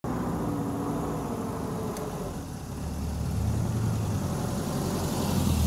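Suzuki Jimny 4x4's engine running at low speed as the vehicle creeps toward and over the microphone, getting louder and deeper over the second half as it comes close.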